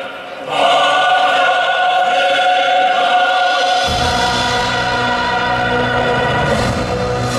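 Choral music with long held chords, swelling in after a brief dip; a deep low part comes in about four seconds in.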